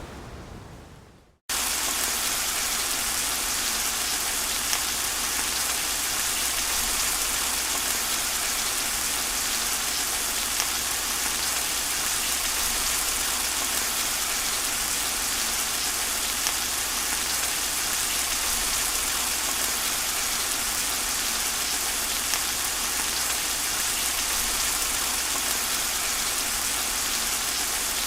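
Rain falling in an even, steady hiss with a few faint drop ticks. About a second and a half in, it starts abruptly after a short fade into silence.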